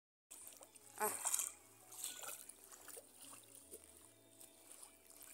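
Faint trickling and light splashing of shallow seawater as shrimp are caught by hand and put into a bucket, with a brief voice sound about a second in.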